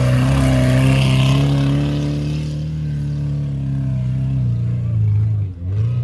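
Lada Niva's engine running hard at high revs, driven flat out through deep sand on a run-up at a steep sand hill, with a hiss of sand thrown up by the spinning wheels in the first couple of seconds. The engine note falls about four and a half seconds in and dips briefly near the end.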